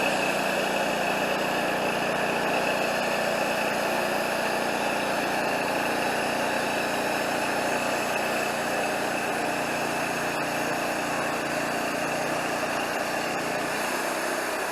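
Wood-Mizer LT40 portable band sawmill running steadily, a constant mechanical engine and machine noise at a steady level.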